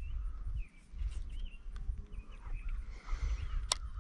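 Small birds chirping in short curved notes over a low, uneven rumble on the microphone, with one sharp click near the end.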